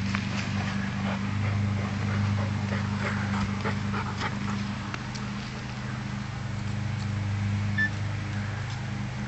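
A springer spaniel digging into lawn turf with its nose and paws, snuffling and scratching in short irregular bursts that thin out after about five seconds, over a steady low hum.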